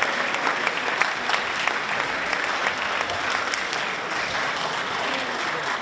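An audience of many people applauding, steady and sustained throughout.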